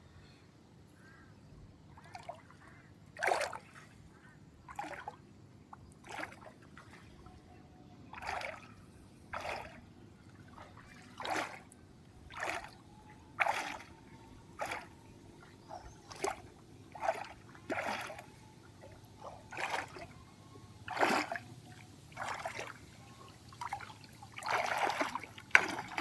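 Water splashing in a run of short, separate splashes, roughly one a second, over a quiet background.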